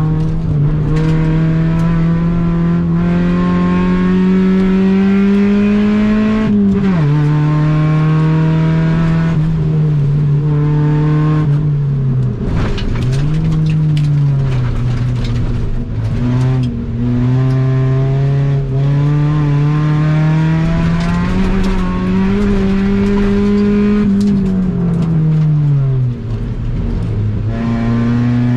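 Honda Civic EG4's four-cylinder engine running hard under load, heard from inside the cabin. The engine note climbs slowly, then falls sharply and picks up again several times, about 6 s in, twice in the middle and once near the end.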